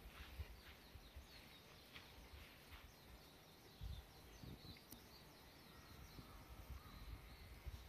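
Near silence outdoors: faint birds chirping in the distance, with a few soft low thumps.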